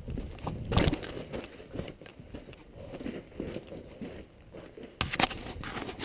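Footsteps crunching and scraping on loose gravel and rock while hiking down a creek bed, uneven in pace, with two louder crunches about a second in and near the end.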